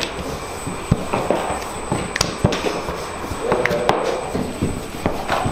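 Wooden rolling pins rolling and knocking on a table as samosa dough is rolled into thin sheets: a handful of sharp knocks spread over a steady background hum.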